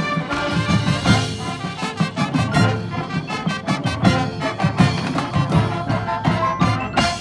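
High school marching band playing: brass chords over a drumline with many sharp drum hits, closing on a loud accented hit near the end, after which the band stops.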